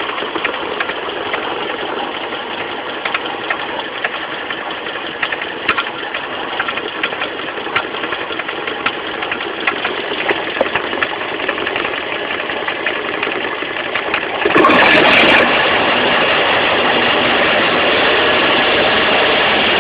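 Mitsubishi 4G15 carburetted four-cylinder engine running, with irregular sharp clicking knocks over the steady engine noise: the sound of a loose crankshaft pulley. The sound turns suddenly louder about two-thirds of the way through.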